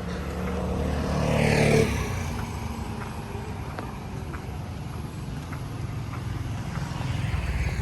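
A motor vehicle passes close by, loudest just under two seconds in, its engine note dropping as it goes away, over a steady rumble of street traffic that swells again near the end as another vehicle approaches.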